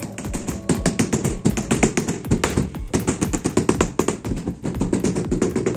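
Rubber mallet tapping rapidly on a large-format floor tile, several dull taps a second, bedding the tile into the mortar bed.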